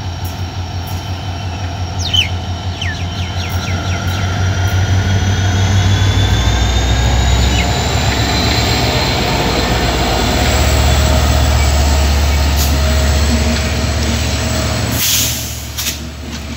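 Diesel-electric locomotive hauling a passenger train slowly past, its engine throbbing deeply and growing louder as it draws alongside, with a thin high squeal from the wheels. Near the end the engine sound falls away as the coaches roll by, with a few sharp clicks from the wheels on the rails.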